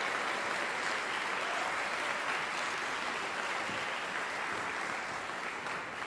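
Audience applauding steadily, beginning to taper off near the end.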